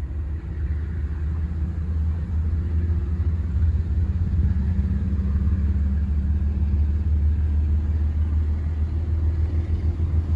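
Steady low rumble of an Amtrak diesel locomotive as it slowly approaches the crossing.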